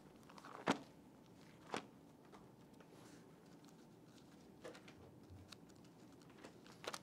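Pages of a Bible being turned by hand: a few soft rustles and light taps in a quiet room. The two clearest come about a second apart, shortly after the start.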